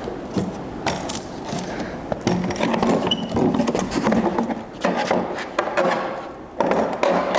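Knocks, clatter and scraping of a car dashboard being handled and moved after it has been pulled out, with many sharp knocks and rubbing of plastic and metal against the car's interior.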